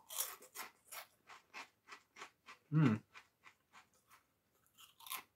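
Crunchy corn snacks (Cheese & Bacon Cornados) being chewed with the mouth close to the microphone: a run of sharp crunches, about three a second. There is a short low hum from the voice about three seconds in.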